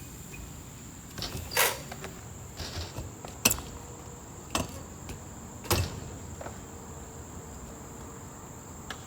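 BMX bike on a skatepark ramp: a handful of sharp knocks and clacks, about a second apart, of tyres and pegs striking the ramp and coping during trick attempts. A steady high chirring of crickets runs behind.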